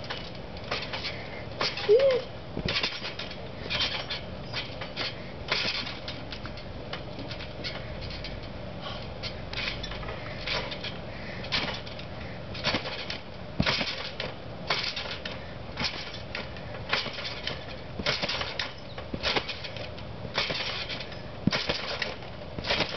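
A trampoline's mat and springs sounding with each landing as someone bounces on it, a short hit repeating in a steady rhythm about once or twice a second.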